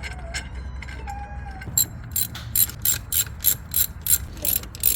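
Hand ratchet with a T55 Torx bit driving in a brake caliper bolt: a rapid run of ratchet clicks, about four a second, starting about two seconds in.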